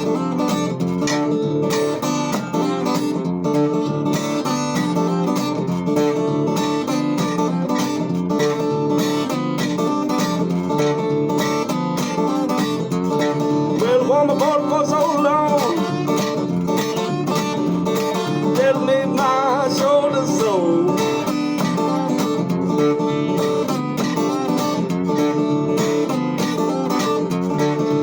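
Country-style acoustic guitar music, steadily plucked and strummed, with a higher gliding melody line joining in about halfway through and again a few seconds later.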